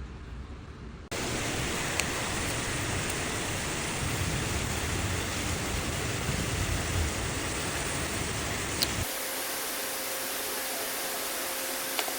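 A steady, even hiss that starts abruptly about a second in. Near the end its low rumble drops away, leaving the hiss with a faint steady hum, and a couple of small clicks.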